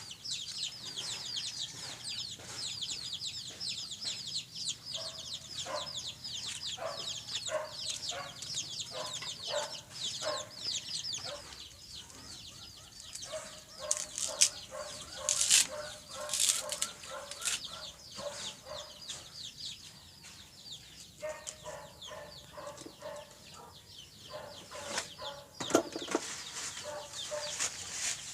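Chickens clucking on and off, with dense, rapid, high-pitched chirping through roughly the first half and a few short, sharp rustles or flaps partway through.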